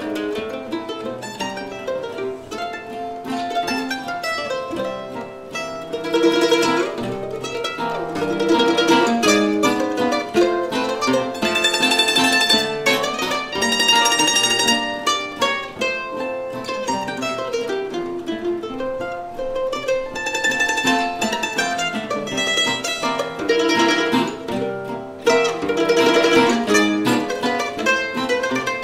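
A mandolin, a flat-top acoustic guitar and an archtop guitar play an Italian string-band tune together, with plucked melody over strummed guitar accompaniment.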